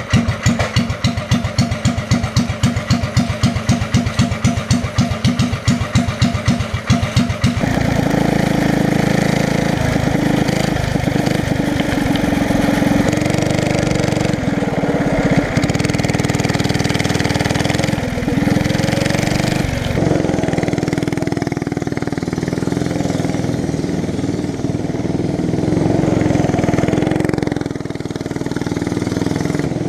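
Single-cylinder Briggs & Stratton 5 hp flathead go-kart engine exhausting through an open header. For the first seven seconds it runs with an even pulsing beat of about five a second. Then it runs steadily under load as the kart is driven, its pitch rising and falling with the throttle.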